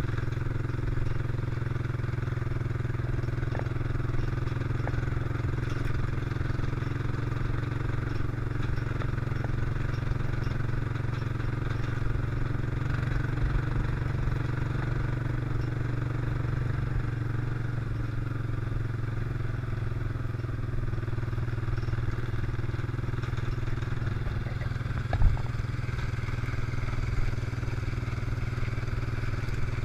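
ATV engine running steadily at cruising speed. Near the end there is a single sharp knock.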